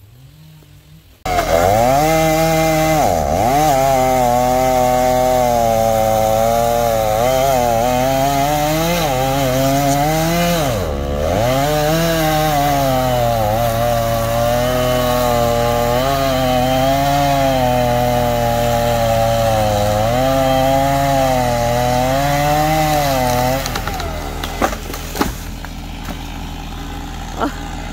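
Gas chainsaw cutting through the trunk of a dead tree, starting suddenly about a second in, its engine pitch rising and falling under load with a couple of brief deep dips. Near the end it runs much quieter, and a few sharp knocks follow.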